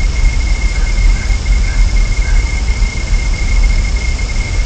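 Steady low rumble and hiss from an outdoor nest-camera microphone, with a constant high-pitched whine throughout; no eagle calls stand out.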